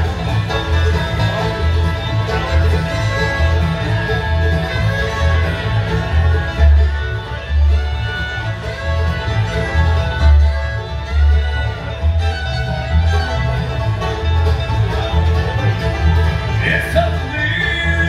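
Live bluegrass band playing an instrumental passage: fiddle, banjo and acoustic guitar over an upright bass keeping a steady beat.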